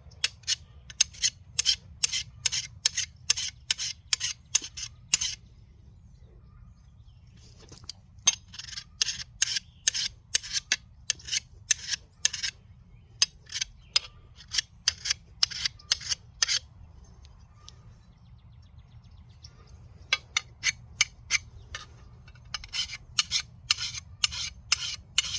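A 10-inch single-cut mill bastard file rasping across the edge of a steel lawn mower blade in quick strokes, about two a second, in several runs with short pauses between. Each stroke removes metal to sharpen the blade's cutting edge.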